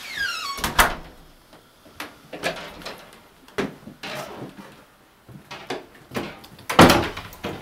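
Irregular knocks and thumps, about eight of them, the loudest about seven seconds in, with a short falling squeal right at the start.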